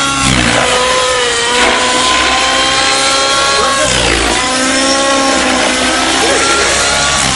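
Align T-REX 700N nitro RC helicopter's engine and rotors running in flight, the note swooping down and back up several times as it manoeuvres.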